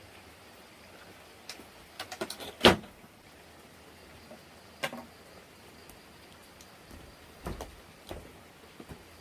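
A few sharp knocks and clatters from objects being handled: a quick run of them about two seconds in ending in one loud knock, a single knock about five seconds in, and a few softer ones near the end.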